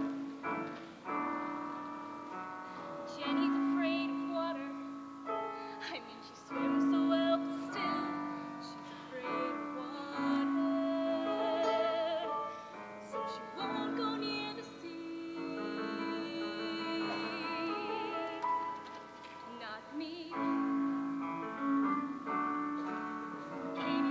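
Two female voices singing a slow duet with long held notes and vibrato, over piano accompaniment.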